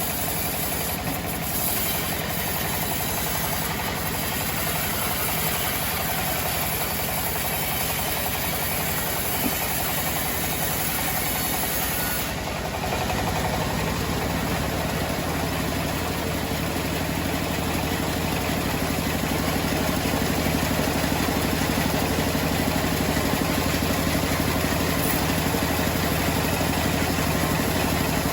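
Homemade sawmill running steadily, its engine drone and the saw's noise continuous, getting a little louder from about halfway on.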